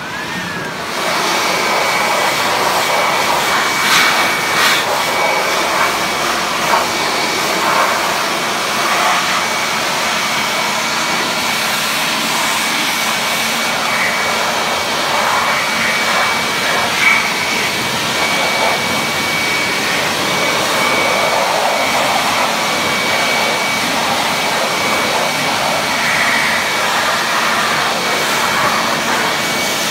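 Handheld leaf blower starting up and then running steadily, blasting air across a freshly rinsed engine bay to dry it. It gives a loud, even rush of air with a thin steady high whine over it.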